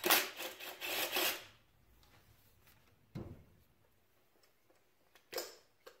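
Ryobi cordless driver spinning a coil-pack bolt loose on a 2.8 L turbo V6 for about a second and a half. This is followed by a dull knock about three seconds in and a short scrape and click near the end.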